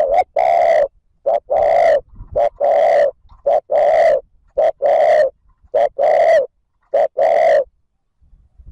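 Male spotted dove cooing in the rapid 'thúc gù' pattern, the urging coo used as a decoy to provoke wild males. It gives seven short-then-long coo pairs, about one a second, and stops near the end.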